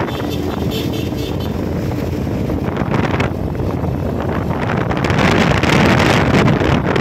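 A motor vehicle running on the road, with wind rushing over the microphone that grows louder about five seconds in.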